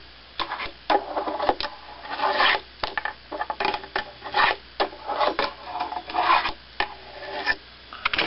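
Wooden fingerboard on Tech Deck plastic wheels rolling and scraping across a wooden tabletop, with irregular sharp clacks as the board is popped and lands.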